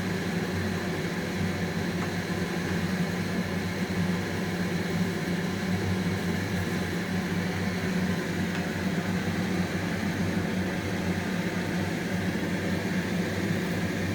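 Steady low hum with an even hiss over it, unchanging throughout, at the stove while bread slices fry in butter in a pan over medium heat.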